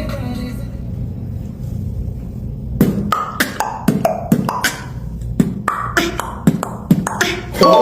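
Beatboxer's mouth percussion: after a low hum, a quick uneven run of sharp pops and clicks, each with a short pitched tail, starts about three seconds in. A loud sung or musical tone comes in just before the end.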